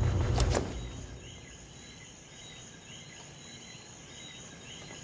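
Outdoor insect ambience: insects chirping in short repeating calls over a steady high-pitched drone. A loud low rumble with a couple of sharp clicks dies away within the first second.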